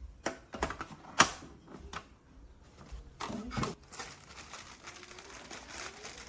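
Irregular light clicks and knocks of something being handled and set down, with one sharper knock about a second in and a clattering cluster a few seconds in. A faint rising whine is heard near the end.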